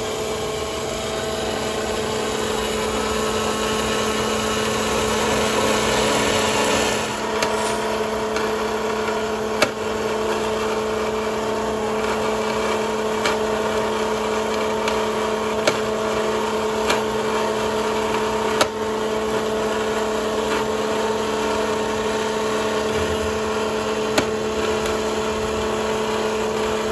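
Metal-cutting band saw running and cutting through a steel two-stroke expansion-chamber exhaust pipe: a steady motor and blade hum, with a few short sharp clicks.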